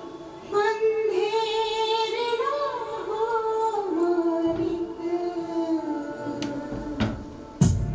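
Recorded music with a sung melody: a singer holds long, wavering notes over a soft backing, then the voice fades and a loud hit near the end brings in a beat.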